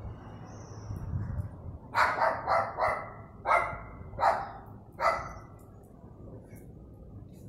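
A dog barking: a run of about seven short, sharp barks in quick succession between about two and five seconds in.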